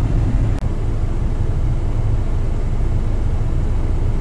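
Steady low rumble of road and engine noise inside a moving car's cabin, with a brief break about half a second in.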